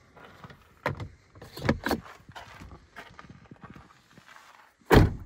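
A few light knocks and rattles as a plastic dog crate's grille door is swung shut and latched, then one loud thump near the end.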